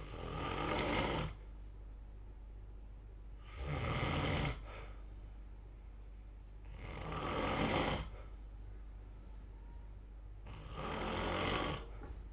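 A person snoring: four snores about every three and a half seconds, each swelling for about a second and then stopping abruptly.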